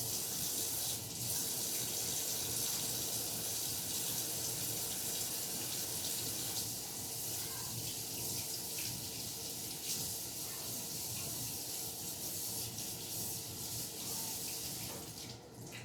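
Kitchen sink tap running while hands are washed under it, a steady splashing hiss that stops shortly before the end.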